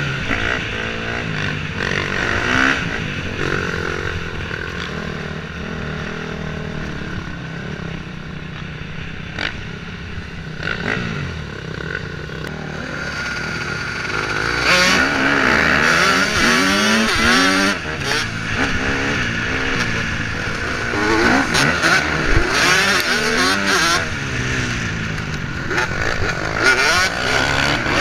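KTM 250 dirt bike engine heard on board, revving up and down through the gears. It runs at lower revs for the first several seconds, then revs hard and repeatedly through the second half.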